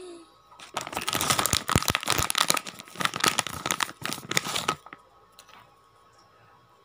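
Close crinkling and crackling of something crumpled in the hands, starting about a second in and stopping just before the five-second mark.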